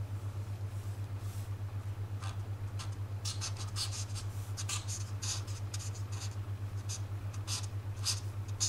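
Felt-tip marker drawing on paper: short scratchy strokes, a few at first and then thick and fast from about three seconds in. A steady low hum, pulsing several times a second, runs underneath.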